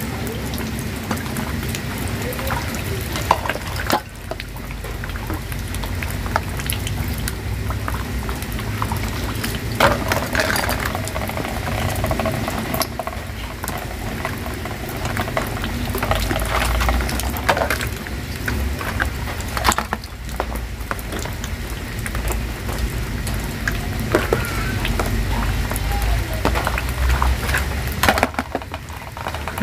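Rain falling steadily while plastic plates and bowls are scrubbed, rinsed in buckets of water and knocked together, with sharp clatters now and then.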